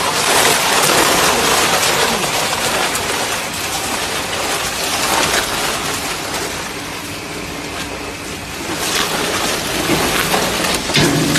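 Single-shaft plastic shredder tearing up woven polypropylene bags: a loud, dense crackling and rattling of plastic being cut by the rotor, with sharper cracks now and then. Near the end a steady machine hum comes up under it.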